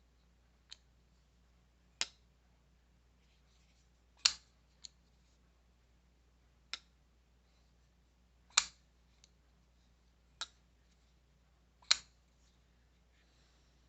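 Sharp, separate clicks of a folding knife being worked open and shut, the blade snapping into its lock and detent, about eight or nine times at uneven intervals, three of them much louder than the rest.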